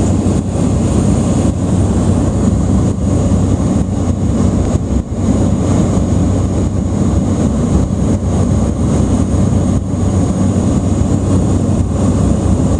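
Steady drone of a small turboprop airliner's engines and propellers heard from inside the cabin in flight, a deep hum with a thin high whine above it, on the approach to landing.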